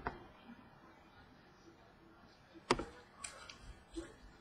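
Trading cards being handled on a tabletop: one sharp tap about two and a half seconds in, then a few lighter clicks.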